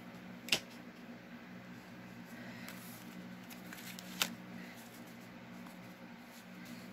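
Quiet handling of paper and craft supplies on a desk, with two short sharp clicks, one about half a second in and another about four seconds in, over a steady low hum.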